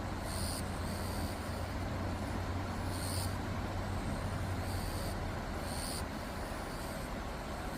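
Steady low rumble of outdoor background noise, like distant road traffic, with a short high-pitched call repeating every two to three seconds.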